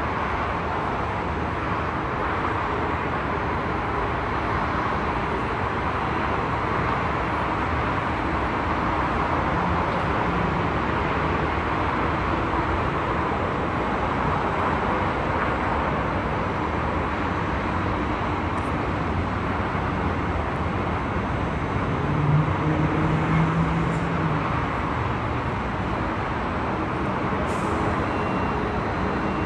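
Steady noise of road traffic, with a short louder low hum about two-thirds of the way through.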